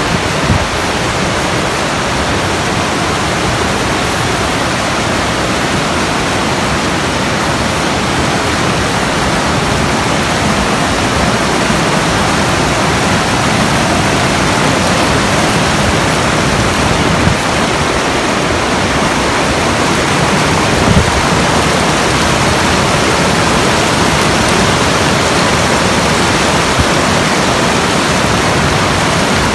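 Steady, loud rush of water pouring over Ocqueoc Falls, the cascade on the Ocqueoc River.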